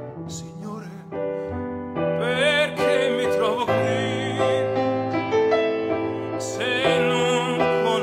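A man singing with vibrato to his own grand piano accompaniment, the piano playing sustained chords under the voice; the singing gets louder about two seconds in.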